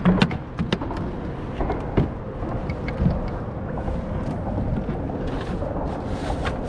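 Knocks and rustling of gear and clothing being handled aboard a plastic fishing kayak, with several sharp knocks in the first three seconds over a steady low rumble.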